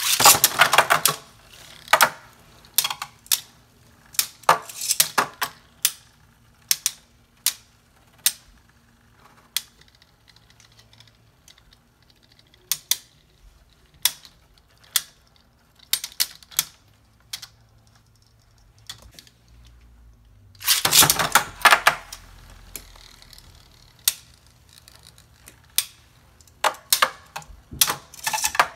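Two Beyblade spinning tops clashing in a red plastic stadium: sharp, irregular clacks as they strike each other and the walls. There is a rapid rattle of clicks right at the start as they are launched with ripcord launchers, and a dense flurry of clashing about three-quarters of the way through.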